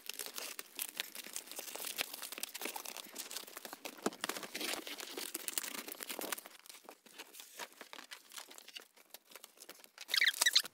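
Knife cutting through the packing tape on a large cardboard box, a dense crackling of tape and cardboard, then the cardboard flaps rustling and scraping as they are pulled open, with a louder scrape of cardboard near the end.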